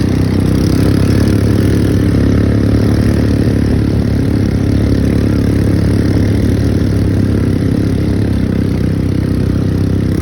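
ATV engine running steadily at an even speed during a ride.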